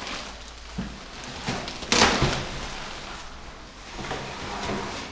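Torn cardboard and bubble wrap rustling and crackling as a large bubble-wrapped dashboard is lifted out of its shipping box, with one loud crackling thump about two seconds in and a few lighter knocks.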